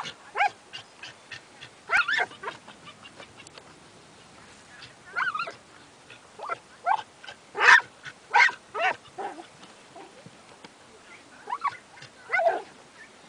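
Glen of Imaal Terrier working caged rats in an earthdog tunnel, giving irregular bursts of short yips, barks and whines, loudest about the middle.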